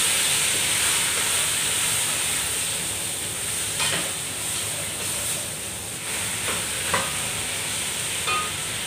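Chicken pieces and whole spices sizzling in a pot while being stirred and sautéed with a wooden spatula. The sizzle is a steady hiss, with a few light knocks of the spatula against the pot in the second half.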